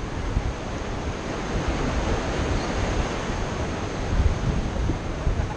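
Steady wash of ocean waves breaking against pier pilings, with wind gusting on the microphone as an uneven low rumble.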